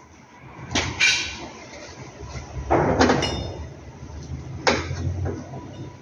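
Several sharp metallic clanks and knocks, one ringing briefly, as steel workpieces and tools are handled and set in place on a metal welding table, over a steady low hum.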